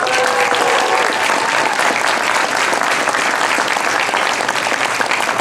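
Crowd of wedding guests applauding steadily.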